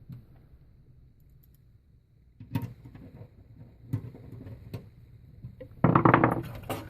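Handling sounds inside a desktop PC case: a few separate sharp clicks and knocks, then a louder rattling clatter near the end.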